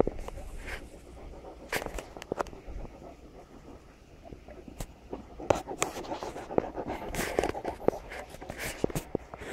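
Great Dane panting, with scattered sharp clicks and scuffs throughout.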